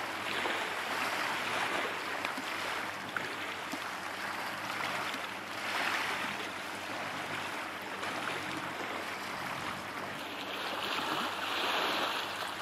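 Steady rushing noise of wind and water along the shore, swelling and easing every few seconds.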